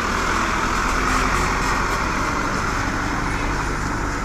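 Diesel engine of a large coach bus running steadily close by: a constant low hum with a hiss over it.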